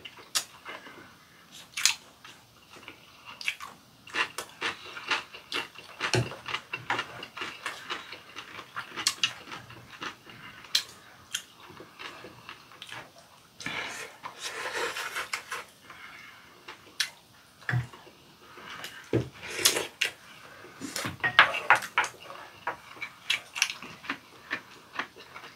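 Eating sounds: chewing, with irregular sharp clicks of chopsticks against ceramic rice bowls, and a longer soft hiss about halfway through.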